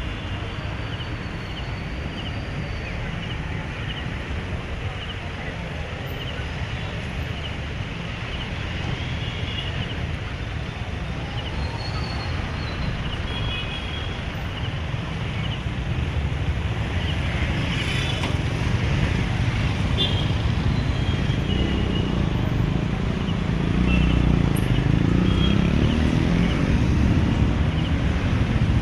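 Street traffic: a steady wash of vehicle engine and road noise, with a low engine rumble that grows louder in the last few seconds as a vehicle draws near.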